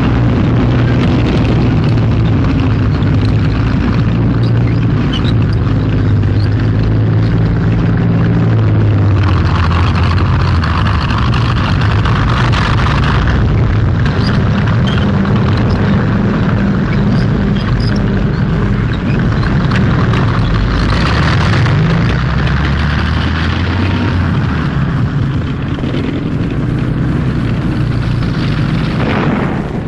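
Battle soundtrack of a wartime newsreel: the continuous low rumble of tank engines mixed with explosions, louder noisy stretches about nine and twenty-one seconds in.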